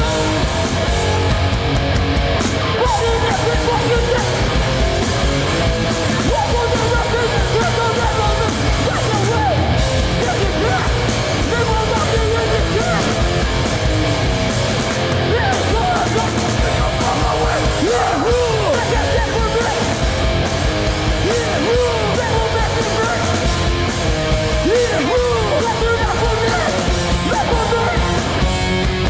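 Hardcore punk band playing live at full volume: distorted electric guitars, bass and drums with shouted vocals.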